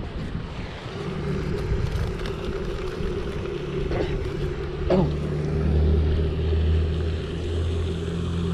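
A motor engine droning steadily in the background, growing louder past the middle, with two short knocks near the middle.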